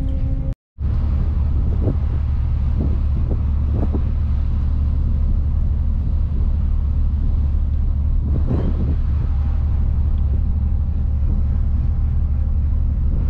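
Steady low rumble of a Tirrenia car ferry's engines under way, heard on deck with some wind on the microphone. The sound cuts out briefly about half a second in.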